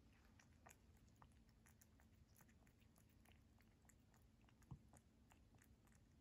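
Faint sound of a ragdoll kitten chewing cat food: a steady run of small clicks and crunches, with one louder knock about three-quarters of the way through.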